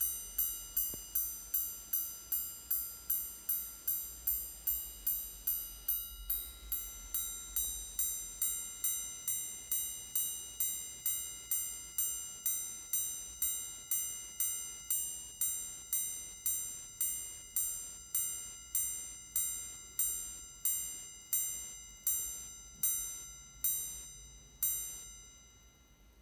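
Ulysse Nardin Sonata Streamline's alarm, its hammer striking the cathedral gong over and over, each strike ringing with several high tones. The strikes come about twice a second at first and slow gradually to about once a second, then stop about 25 seconds in.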